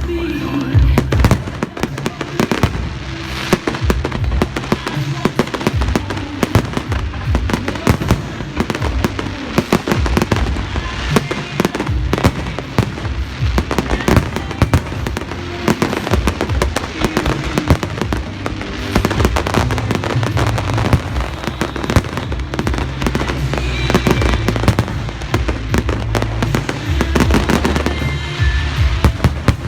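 A fireworks display going off in a dense, continuous run of bangs and crackles, over background music with a steady bass.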